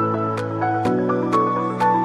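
Instrumental new-age background music: a gentle melody over a steady beat of about two ticks a second, with the chord changing a little under a second in.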